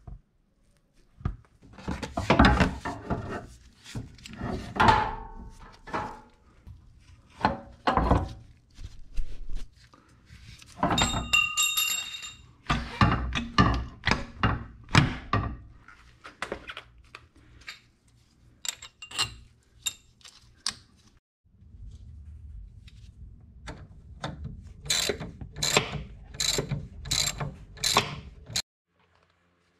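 Hand tools and steel suspension parts under a 1991 Honda Civic: irregular clanks, knocks and clicks of wrenches on bolts. One clank rings briefly about eleven seconds in. Near the end comes a steady run of ratcheting clicks, two to three a second, before the sound cuts off abruptly.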